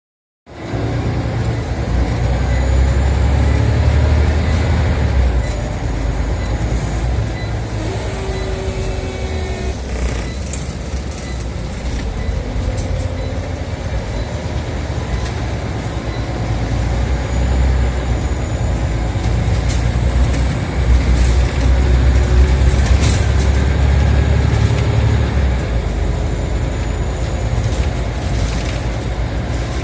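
Scania OmniCity single-deck bus on the move, heard from inside: a low diesel engine drone with road noise. The drone swells twice, near the start and again about two-thirds of the way through.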